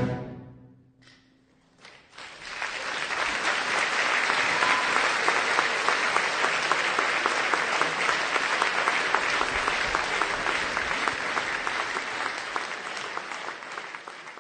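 A final orchestral chord dies away, then a concert audience breaks into applause about two seconds in, holding steady and fading near the end.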